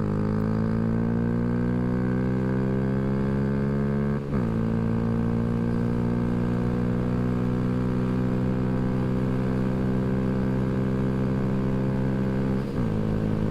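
Honda Grom's 125 cc single-cylinder engine pulling at full throttle under riding load, its note climbing slowly, with brief breaks and drops in pitch about four seconds in and near the end as it shifts up a gear. It breathes through an add-on ram air intake and aftermarket exhaust.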